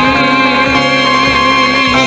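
Recorded song with instrumental backing: a singer holds one long note with vibrato on the song's closing line.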